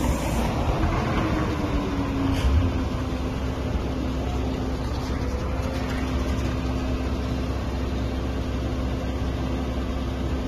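Diesel engine and hydraulic pump of a truck-mounted crane running under load, a steady low rumble with a hum that falls in pitch over the first two seconds and then holds level. A single knock about two and a half seconds in.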